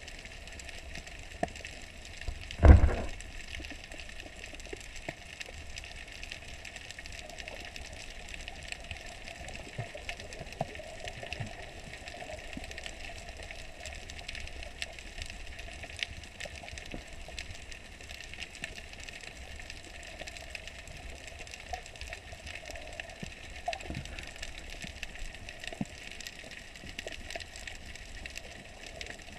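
Underwater ambience: a steady muffled hiss with faint scattered clicks. About three seconds in comes one loud, low thump.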